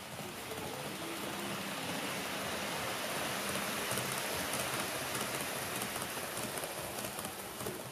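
HO-gauge model train rolling past close by on layout track: a steady rush of wheels on rails that swells slightly as the cars pass, with faint rapid ticks in the second half.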